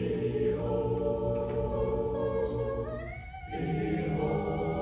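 Chamber choir singing long, held chords, with a brief dip about three seconds in before a new chord enters with a rising upper voice.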